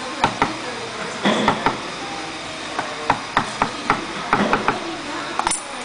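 A wood chisel struck with a wooden mallet, cutting into a wooden panel for intarsia inlay: a string of sharp, irregular knocks, closest together between about three and four and a half seconds in.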